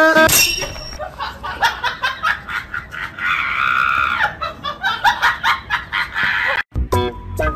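People laughing in short, choppy bursts, with a longer high-pitched cry about three seconds in.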